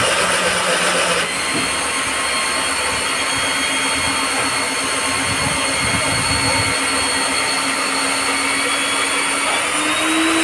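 Electric core drilling machine with a diamond core bit running while it bores through a building's outer wall: a steady motor whine over a grinding hiss, louder and rougher for about the first second before it settles to an even drone.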